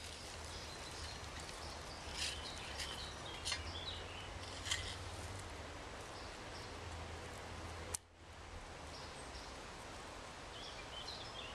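Outdoor woodland ambience: a steady low rumble and hiss with a few faint bird chirps, and a single sharp click about eight seconds in.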